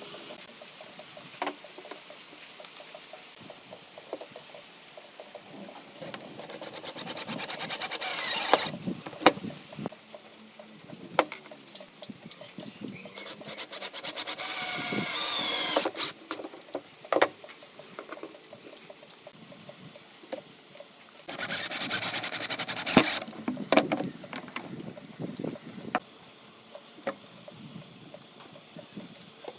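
A power tool working wood in three bursts of a few seconds each, with knocks and handling of wood in between.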